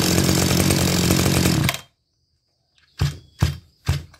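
Maruyama MBS320 brush cutter's 32cc two-stroke engine running steadily just after a pull start, then cutting off abruptly about two seconds in. Near the end come three short bursts as the starter rope is pulled again and the engine fires.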